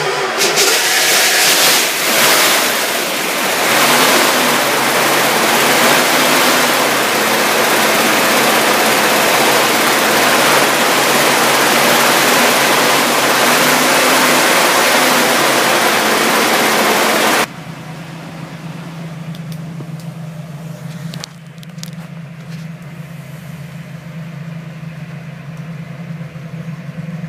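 Chrysler 273 cubic-inch small-block V8 running sweetly, loud with a strong rushing noise. About two-thirds of the way through it drops suddenly to a quieter, steady idle with a low hum, heard from inside the cabin.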